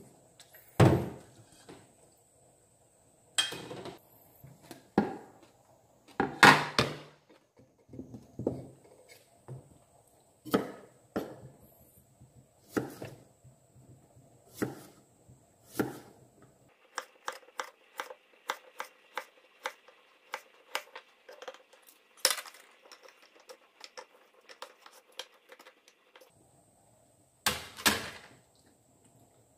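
Kitchen knife slicing a cucumber on a wooden cutting board: single sharp cuts a second or two apart, then a faster even run of about three cuts a second in the second half. Louder knocks from handling a stainless steel bowl come near the start and near the end.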